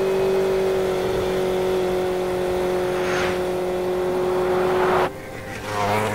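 A steady engine hum made of several fixed tones, with a short whoosh about three seconds in. About five seconds in, the hum drops and changes to a different set of tones.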